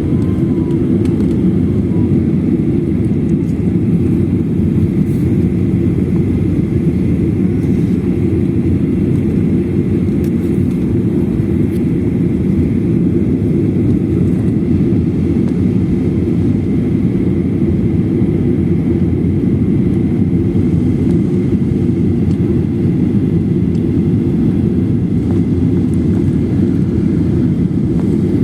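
Boeing 737-800 jet airliner in flight on its landing approach: its CFM56 turbofan engines and the airflow make one steady, even rumble.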